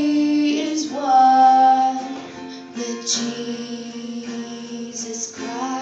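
A young girl singing long held notes, accompanied by guitar.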